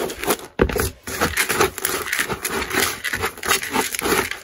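A hand stirring gritty potting mix of gardening soil and coarse grit in a plastic basin, with an unbroken scratchy rustle and crunch of soil and grit.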